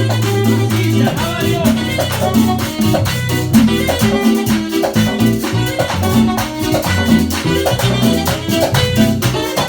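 A band playing Latin-style dance music at a sound check, with a moving bass line under dense, regular percussion strokes.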